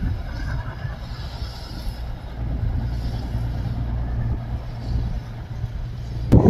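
Low, steady engine rumble, with a sharp knock near the end.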